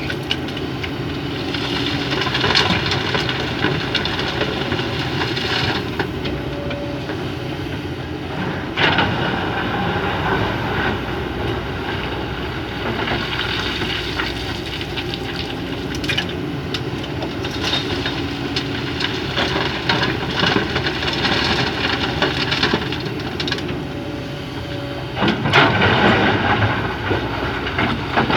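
Excavator working: its diesel engine runs steadily with hissing and rattling, and the noise swells briefly about nine seconds in and again near the end.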